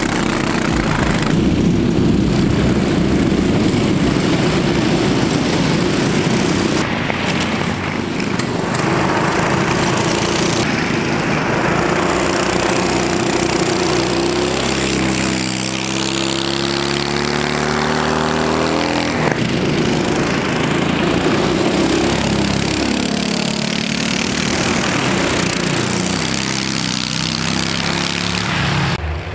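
Racing go-kart engines running at speed, with karts passing by. About halfway through, one engine's note climbs steadily as it accelerates, then cuts off suddenly.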